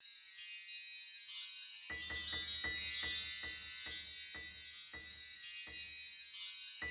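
Music intro: a high, shimmering wind-chime-like texture. About two seconds in it is joined by a run of short low hits that come more slowly and fade out.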